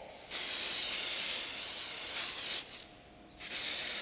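Aerosol can of Koube Anti-Chio brake anti-squeal compound spraying through a straw nozzle onto the metal backing of a brake pad: a steady hiss of over two seconds, a short break, then a second burst near the end. It is a repeat coat of the film meant to damp the pad vibration behind brake squeal.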